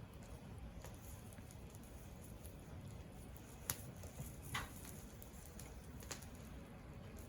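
Wood fire burning with a low steady rumble and scattered sharp crackles and pops, the loudest about halfway through. There is a short hiss just after it.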